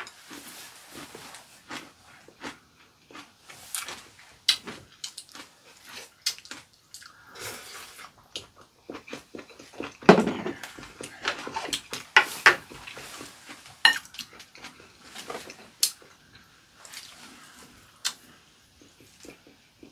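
Two people eating: chewing and mouth sounds, with scattered clicks of chopsticks against bowls and plates.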